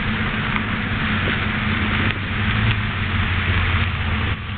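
Pickup truck engine running as the truck drives up close, under a steady hiss. The low engine hum grows louder about two seconds in as the truck nears.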